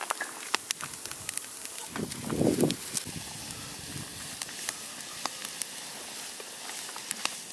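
Wood fire of sticks and branches crackling with many sharp pops over a steady hiss, with steaks sizzling on the grill grate above it. A brief low rumble comes about two seconds in.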